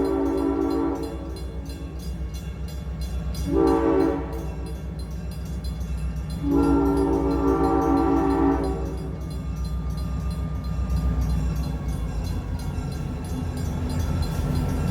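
Locomotive horn blowing the tail of a grade-crossing signal: a long blast that ends about a second in, a short blast a few seconds later, then a long blast of about two seconds. A steady rumble of the locomotive and passing train runs underneath.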